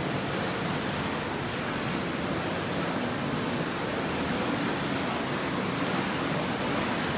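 Whirlpool tub jets running, water churning and bubbling with a steady, even rush.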